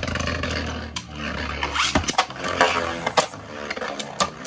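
Two Beyblade Burst tops, Infinite Dragon and Prominence Phoenix, spinning in a clear plastic Beyblade stadium: a steady whirring scrape broken by sharp clacks as they collide, a quick run of clacks near the end.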